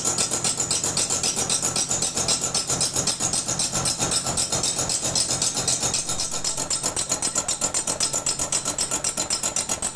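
Old lathe running with a cutter on its spinning faceplate milling the face of a cast metal donkey water pump body, the cutter hitting the metal in a rapid, even rhythm several times a second over the steady run of the machine.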